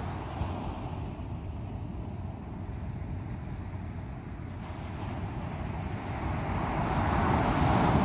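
Sea waves surging against the shore over a steady low rumble, with one wave building and breaking loudest near the end.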